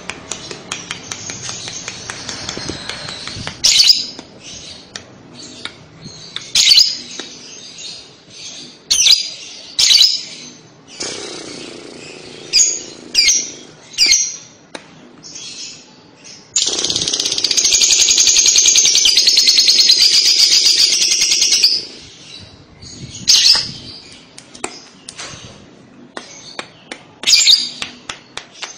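Lovebird calling: sharp, high chirps scattered throughout. About 17 seconds in comes a long, rapid, continuous chattering trill, the 'kekek' song, lasting around five seconds and louder than the chirps.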